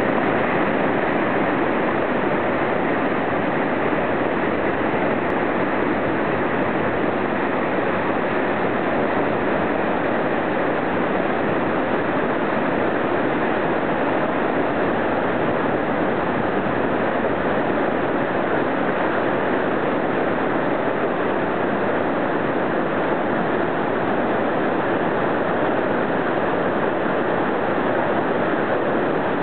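Whitewater rapids rushing over and around boulders: a steady, unbroken rush of fast water.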